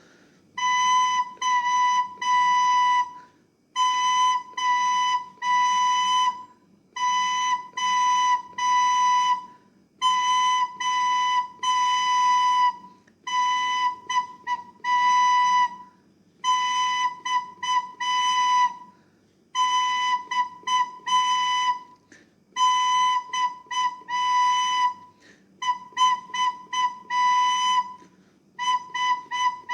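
Recorder playing the single note B over and over: tongued notes of varying length grouped into short rhythmic phrases, with brief pauses between phrases.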